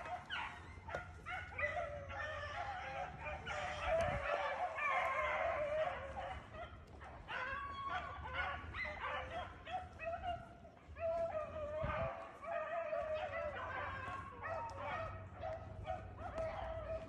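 A pack of beagles baying on a rabbit's trail, many hound voices overlapping without a break: the dogs are running the rabbit toward the hunter.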